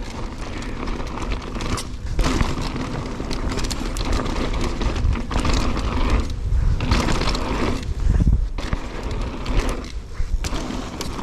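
Mountain bike ridden fast down a dirt trail: continuous tyre and rushing noise with rattles and knocks. The noise drops out briefly three times, about two, six and ten seconds in.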